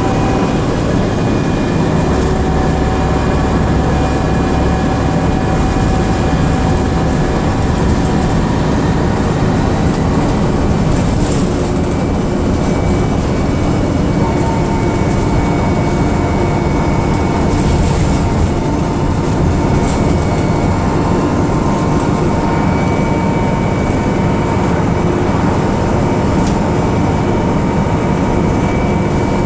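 DAF DB250 double-decker bus under way, heard from the upper deck: steady engine and road noise with a sustained whine and a few light clicks.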